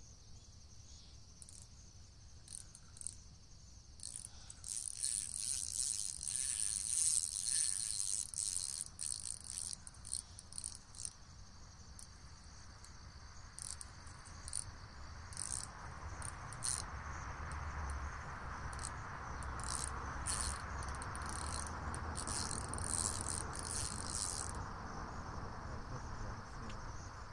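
Steady high-pitched chorus of insects in summer riverside vegetation, with bursts of rapid high clicking and rattling through the middle and a soft hiss that swells in the second half.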